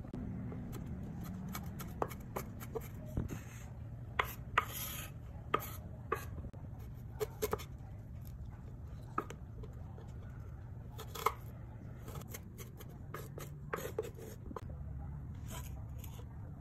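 Chef's knife slicing and mincing fresh ginger on a wooden cutting board: uneven, scattered knocks of the blade on the wood.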